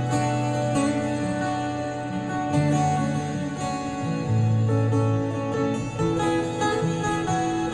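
Solo acoustic guitar played live in a slow, ambient instrumental. Ringing notes sustain over a low note that changes about every second.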